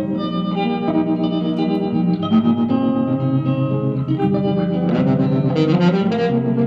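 Electric guitar played through a Vox AC10C1 10-watt valve combo amp: a run of picked notes and chords, with brighter strummed chords from about five seconds in.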